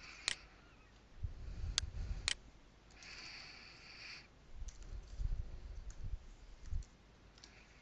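Computer mouse clicks and keyboard keystrokes, faint. A few sharper clicks come in the first two and a half seconds, then scattered light taps as a file path is typed.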